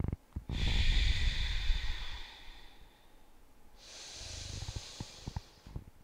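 A person taking slow, deep breaths through the nose, close to the microphone. One long breath lasting about two seconds comes first, then after a pause a second, quieter breath.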